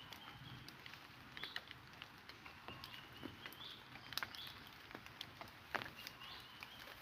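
Faint, irregular light clicks and crackles, like dry twigs and leaf litter being stepped on or handled, with short high chirps now and then.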